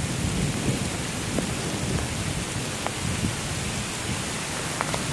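Heavy rain falling steadily on forest foliage, over a low, rolling rumble of thunder. A few sharp ticks of nearby drops stand out in the second half.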